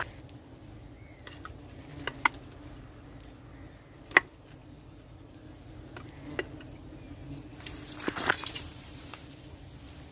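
Honey bees humming steadily around a wild comb being harvested, broken by several sharp clicks and knocks, the loudest about four seconds in and a quick cluster near eight seconds.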